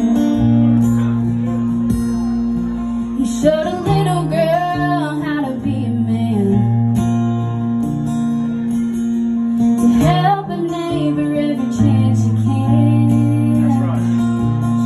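Acoustic guitar strummed and picked in a steady accompaniment, with a voice singing phrases over it, about four seconds in and again about ten seconds in.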